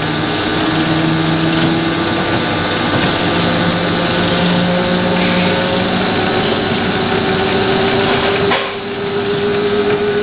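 18-inch vertical band saw running, its motor and variable-speed belt drive giving a steady whine that slowly rises in pitch as the speed handle is turned from slow toward fast. A brief click with a short dip in level comes about eight and a half seconds in.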